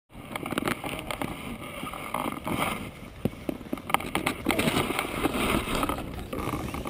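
Wind buffeting a GoPro's microphone as the camera swings on a kite line, with many irregular knocks and rattles of the camera case.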